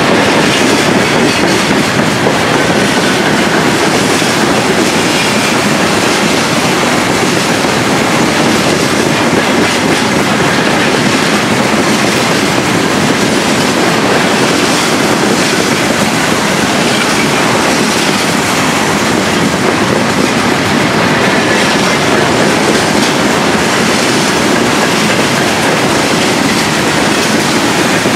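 Freight train of hopper wagons rolling past at steady speed: a continuous loud rolling noise of steel wheels on rails, with the clack of wheels over rail joints.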